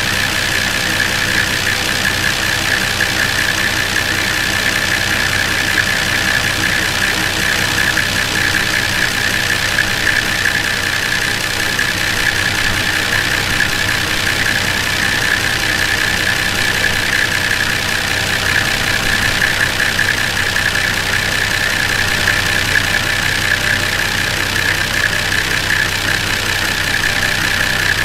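Nissan Y60 Safari's TD42T turbo diesel, a 4.2-litre straight-six, idling steadily with the hood open, warming up after a cold start in sub-zero temperatures. A steady high-pitched whine sits over the diesel idle.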